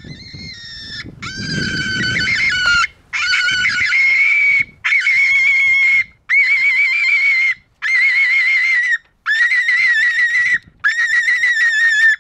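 FoxPro CS24C electronic predator call playing a recorded screaming rabbit distress sound through its horn speaker: a run of about eight high, wavering screams, each a second or so long with short breaks between.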